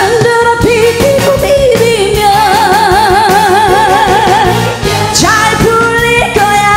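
Korean trot song performed live: a woman singing over a full band with a steady beat, holding notes with a wide vibrato.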